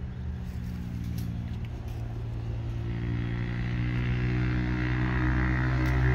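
Small petrol engine running steadily at low speed, getting gradually louder, with a few faint knocks.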